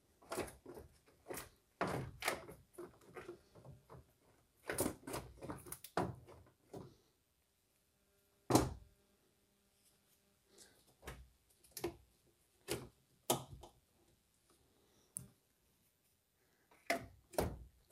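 Irregular knocks, clunks and rattles as a car radiator is worked loose and pulled out of the engine bay, with one sharper knock about halfway through.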